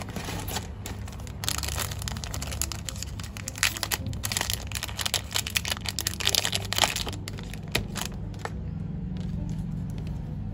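Clear plastic packaging bag crinkling and crackling as a black watch strap is pulled out of it. Dense crackles that thin out about eight seconds in.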